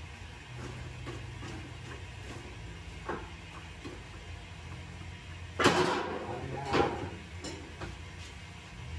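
Large kitchen knife cutting and scoring a tulingan (bullet tuna) on a plastic cutting board, with light clicks and two louder knocks and scrapes of the blade and fish against the board about five and a half and seven seconds in. A steady low hum runs underneath.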